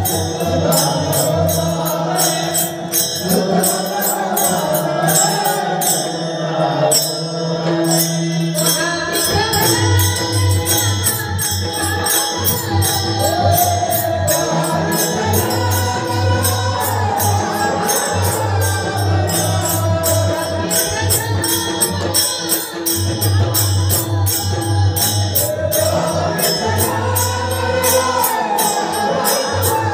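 Live devotional singing amplified through a PA system: a voice singing a melody over a fast, steady jingling beat, with a low bass note that comes and goes.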